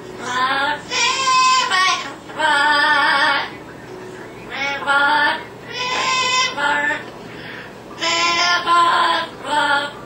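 Yellow-naped Amazon parrot vocalizing in a string of about seven short, sing-song, human-like phrases, each about half a second to a second long, with short pauses between.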